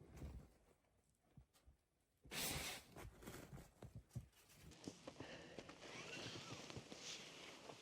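Snow being shovelled: a loud scrape of the shovel through snow about two seconds in, then quieter scuffs and knocks, giving way to a steady hiss.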